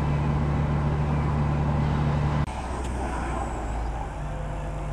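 An engine running steadily with a low hum. About halfway through, the hum suddenly drops in level and changes tone.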